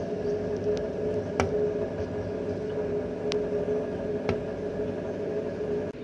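A steady machine hum with a constant mid-pitched drone, broken by three sharp taps spread through it.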